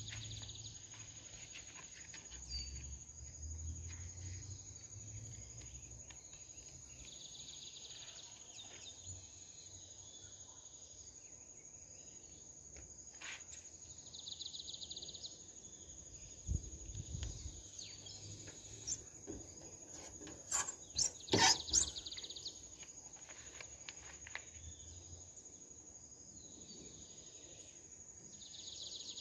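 Faint outdoor insect sound: a steady high drone, with a buzzing call that swells and fades about every seven seconds. A few sharp clicks come in a cluster a little past two-thirds of the way through.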